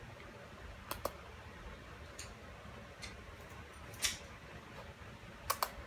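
A handful of sharp, light clicks at irregular moments, about six in all, with two close together near the end, over faint room noise.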